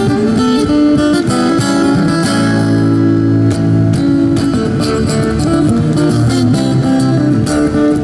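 Acoustic-electric guitar played fingerstyle through a small Roland amplifier: quick runs of plucked notes, with a chord left ringing for about a second a little over two seconds in.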